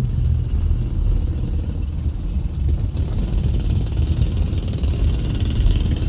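Steady low rumble of a car driving, engine and tyre noise heard from inside the cabin, with a higher hiss swelling in the second half.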